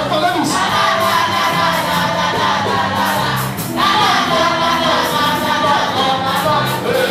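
Gospel praise music with a congregation singing together over a steady beat and bass.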